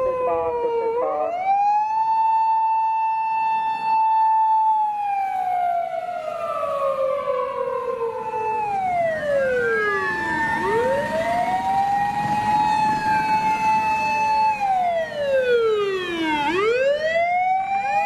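Japanese fire engine sirens wailing, each rising to a high held pitch, holding for a few seconds, then sliding slowly down. Two or more sirens overlap out of step, dipping low and climbing again about a second in and again near the end.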